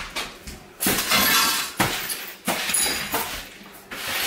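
Shards of broken plates clinking and scraping across a hard floor as a broom sweeps them, in repeated strokes about a second apart.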